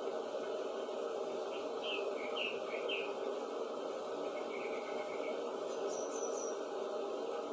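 A few short, faint bird chirps in small clusters, about two seconds in and again near six seconds, over a steady background hiss.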